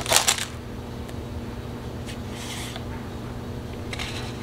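Foil booster-pack wrapper crinkling in the hands as it is pulled open, loudest in the first half second, with a softer rustle about halfway through. A low steady hum runs underneath.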